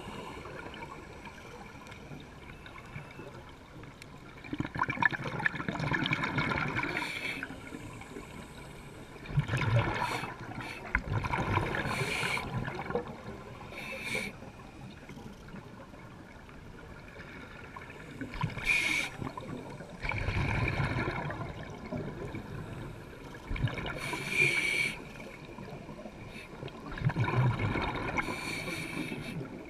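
Scuba breathing heard underwater: a diver's regulator hissing on each inhale and exhaled bubbles gurgling up. The bursts repeat every few seconds over a quieter steady wash of water.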